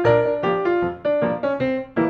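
Background music: a piano-like keyboard playing chords and melody notes, struck a few times a second, each note ringing and fading.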